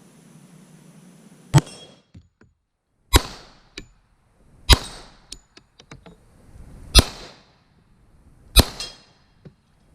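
Five 10mm handgun shots spaced about one and a half to two seconds apart, each followed by a short echo, with faint small clinks in between.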